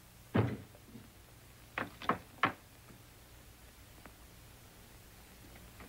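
A single dull thud, then about a second and a half later three quick knocks in a row, over the faint steady hum of an old film soundtrack.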